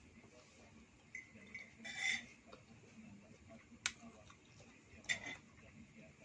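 A few scattered light clinks and taps of cutlery against dishware, the loudest about two seconds in.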